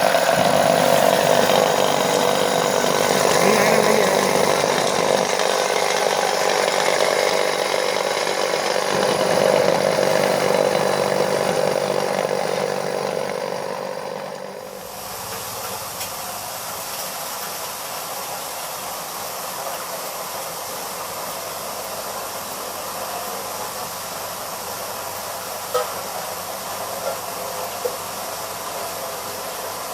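Electric soya milk grinding machine running and grinding soaked beans with water: a loud, steady mechanical grinding. About halfway through it drops abruptly to a quieter, even whir, with a couple of faint clicks near the end.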